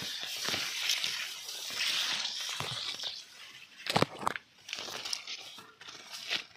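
Pearl millet (bajra) leaves and stalks rustling and crinkling as someone pushes through the standing crop, with a few sharp snaps, the loudest about four seconds in.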